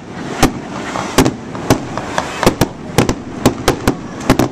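Aerial fireworks bursting overhead: a rapid, irregular run of sharp bangs, about a dozen in under five seconds.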